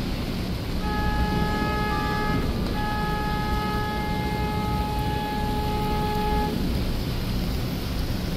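A car horn sounds twice over steady noise of rain and traffic on a wet street: a short honk of about a second and a half, then a long one held for nearly four seconds.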